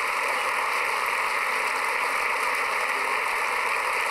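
Large crowd applauding and cheering, a steady, even din.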